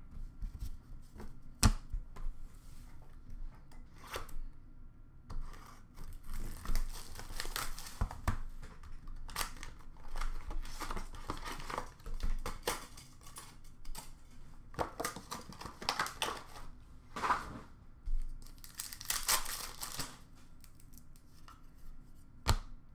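A paper-and-foil trading-card pack being torn open by hand, its wrapper rustling and crinkling in several stretches, with a few sharp taps in between.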